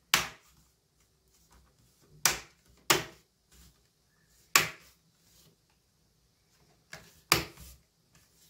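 Plastic clips of a laptop's front screen bezel snapping into the lid as it is pressed into place, about six sharp clicks at irregular intervals.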